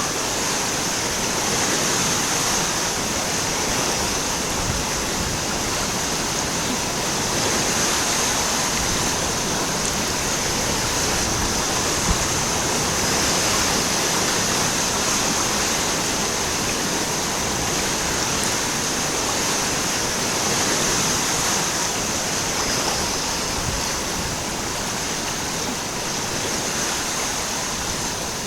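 Rushing water running steadily, with a constant high-pitched hiss or buzz sitting above it.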